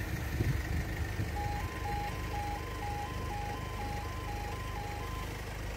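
Level crossing audible warning alarm sounding an alternating two-tone electronic beep, about two high–low pairs a second, while the road barriers lower to warn that a train is approaching. It starts about a second in and stops shortly before the end, over a steady low rumble.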